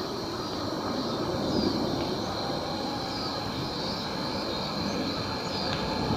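Outdoor ambience: a steady low rumble under a continuous high-pitched drone of insects, with a few short falling chirps.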